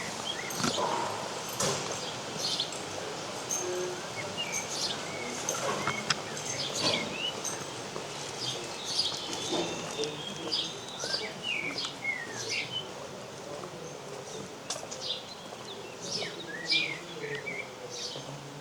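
Several small songbirds singing, a busy, overlapping run of short chirps and whistles, with a few sharp ticks among them.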